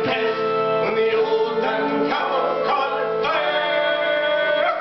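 Autoharp strummed in chords with a man singing over it, ending on a long held chord for the last second and a half.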